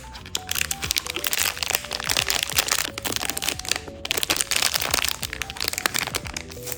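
Packaging crinkling and crackling as it is handled and unwrapped by hand, with a short pause about four seconds in, over background music with a simple melody.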